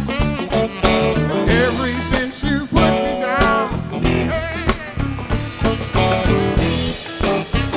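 A band playing a blues-soul groove, with electric guitar lines bending in pitch over bass and drums.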